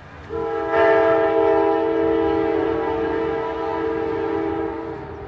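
Amtrak locomotive's air horn sounding one long multi-note chord as the train approaches the station, filling out about a second in and cutting off near the end.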